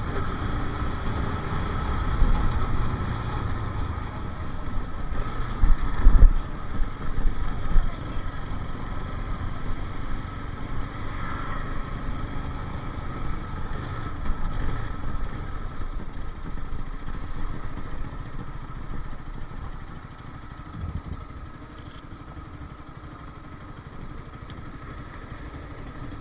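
Bajaj Pulsar RS 200's single-cylinder engine running, under a steady low rumble, with a few louder thumps about six seconds in; the sound eases and stays quieter over the last several seconds.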